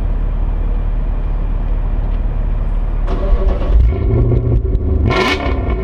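BMW E39 M5's 4.9-litre V8 with a Dinan exhaust idling with a steady low burble, heard close to the exhaust tips. About five seconds in it is revved once, the pitch rising quickly and falling back.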